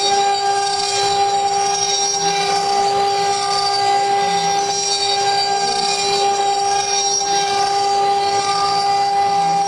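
CNC router spindle running with a steady high whine while the rotary axis turns the wood workpiece under the cutter. The cutting noise swells and fades about every two seconds.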